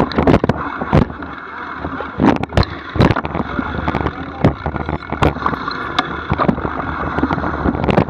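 Mountain bike rolling down a rough, rutted dirt trail, heard close up: a steady rushing noise with many irregular knocks and rattles as the bike jolts over ruts and stones, heaviest in the first few seconds.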